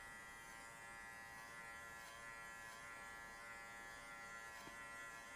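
Cordless electric pet clipper fitted with a 13 mm comb, running with a faint steady buzz as it trims the fur on a small dog's ear from base to tip.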